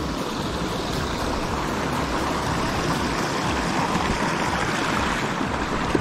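Small mountain stream flowing over rocks, a steady rush of water.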